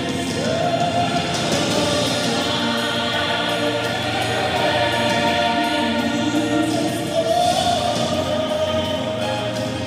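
A group of voices singing a song together over instrumental accompaniment.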